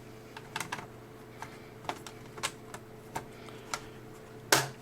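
Light plastic clicks and taps as the bottom access cover of an Acer Aspire E1-571 laptop is handled and fitted back onto the case, with a louder click near the end.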